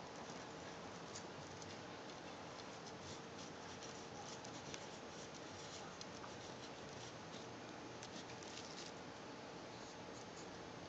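Fountain pen nib scratching across paper in short, irregular strokes while writing capital letters; faint, over a steady hiss.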